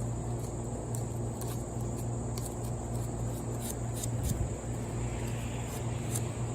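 Steady low hum with faint scattered ticks and a light scratchy rubbing near the end, from hand-tool cleanup of a small wooden carving.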